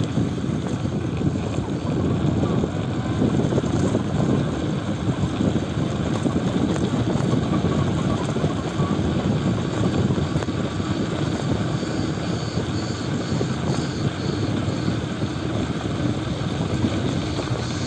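Wind buffeting the microphone of a camera riding on a moving bicycle: a steady low rumble.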